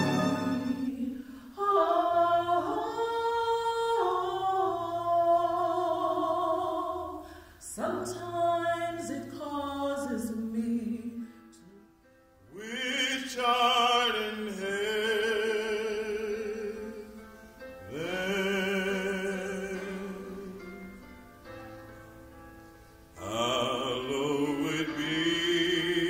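A solo singer in a classical style, holding long notes with vibrato in phrases of a few seconds, over a soft sustained accompaniment. A short near-silent break comes about twelve seconds in.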